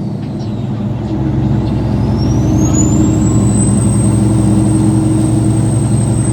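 Caterpillar 3406B inline-six diesel engine revving up about a second in and holding, its turbocharger whistle rising in pitch and then holding steady as a high whine over the engine's running.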